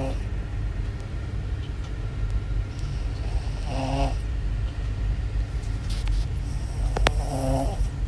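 Sleeping puppy snoring: three short snores about every three and a half seconds, over a steady low rumble.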